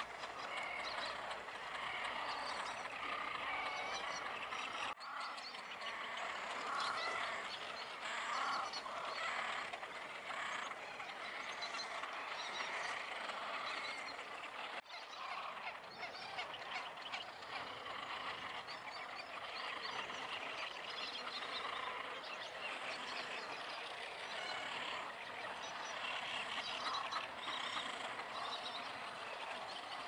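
Dense, continuous chorus of many small overlapping animal calls from a reed-bed wetland, briefly broken twice.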